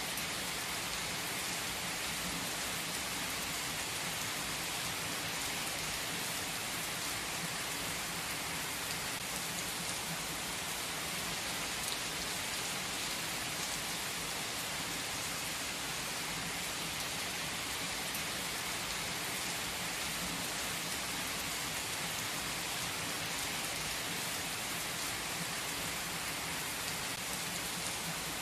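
Heavy rain pouring onto wet asphalt pavement, a dense, steady hiss of splashing drops that holds even throughout.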